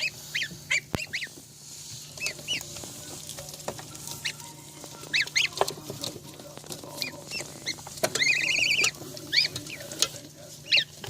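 Ducklings peeping while they eat: many short, high calls, with a quick run of rapid trilled peeps about eight seconds in. A few sharp clicks and a low steady hum sit underneath.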